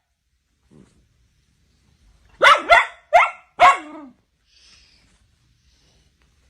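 A dog barking four times in quick succession, about two and a half seconds in; the last bark drops in pitch at its end.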